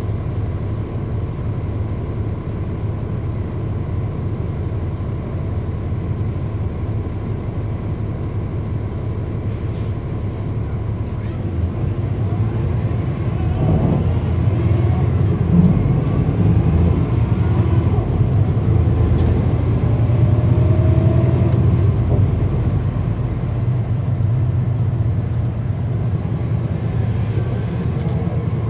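Cummins ISL9 inline-six diesel of a 2010 NABI 40-SFW transit bus heard from inside the bus while under way, with its engine cooling fans running. The low engine drone grows louder about halfway through, stays up for several seconds, then eases off near the end.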